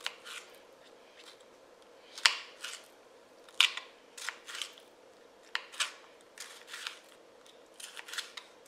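Kitchen knife cutting a pepper into pieces on a cutting board: a dozen or so crisp, sharp cuts at uneven intervals.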